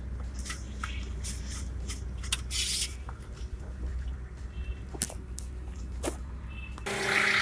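Scattered clicks and rustles of hands working the bonnet release under a car's dashboard, over a steady low hum. Near the end a louder hissing noise suddenly comes in and the low hum drops away.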